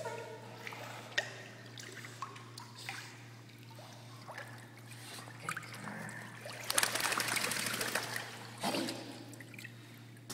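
Pool water lapping, trickling and dripping as a pit bull puppy swims to the edge. About seven seconds in comes a louder rush of splashing and streaming water as she climbs out. A steady low hum runs underneath.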